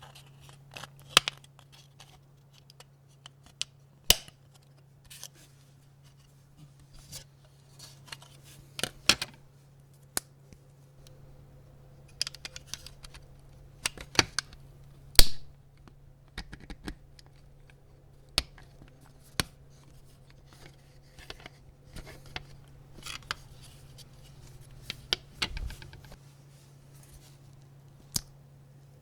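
Small hand tools and parts of a diecast model car clicking and tapping in irregular sharp clicks, a few of them louder, over a steady low hum.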